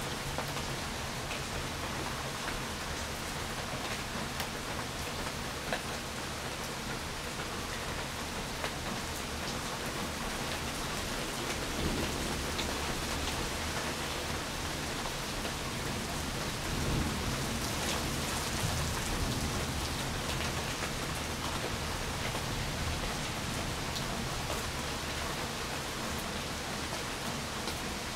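Steady rain falling on a wet street and trees, with scattered drops ticking. A low rumble of thunder swells about halfway through and again a few seconds later.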